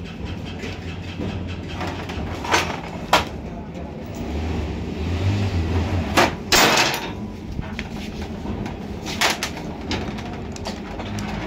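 Metal tools and engine parts clinking and knocking against a cylinder head during engine assembly: several short, sharp knocks spread through, over a steady low hum.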